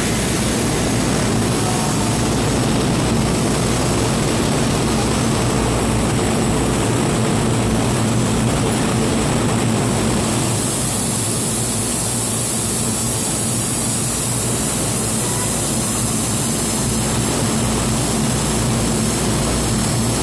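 Steady droning hum of the Kintetsu 50000 series Shimakaze electric train standing at the platform, its onboard equipment and fans running, echoing in the underground station. A high hiss grows louder about ten seconds in.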